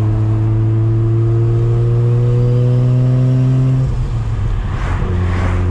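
Big single-turbo Mazda RX-7 rotary engine heard from inside the cabin, droning as the revs climb slowly under light throttle. About four seconds in the note breaks off, as for an upshift, and picks up again at lower revs after a brief rush of noise.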